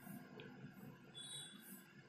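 Near silence, with faint soft rustles as chopped coriander leaves are pinched from a bowl and dropped onto sliced onions in a plastic mixing bowl.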